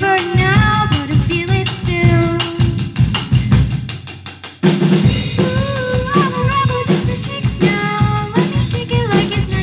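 A rock band playing live: drum kit, electric guitar and a girl's voice singing through a wireless microphone and amplifier. The drums and low end thin out briefly around four seconds in, then the full band comes back in hard.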